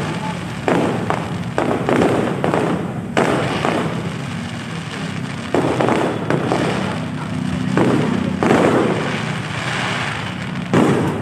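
Fireworks exploding one after another at irregular intervals: a string of sudden bangs, with crackling noise between them.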